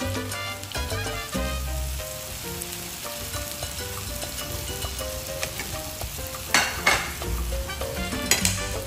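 Korean galbi beef short ribs frying on a grill pan over a portable butane stove, with a steady sizzle. A couple of sharp clicks come about six and a half seconds in.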